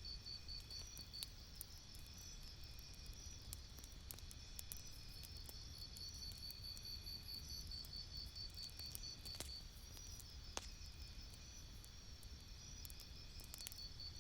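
Campfire crackling: scattered sharp pops and ticks, two louder ones about two-thirds of the way in, over a low steady rumble. A high, rapidly pulsing chirp runs on steadily behind it.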